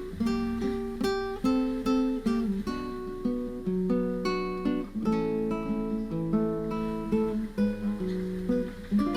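Background music of a plucked acoustic guitar, a run of picked notes and chords at a lively, even pace.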